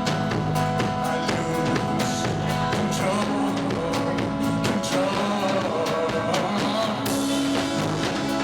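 Live rock band playing, with drums beating steadily under held guitar chords and a wavering melody line, in a rough, low-quality recording.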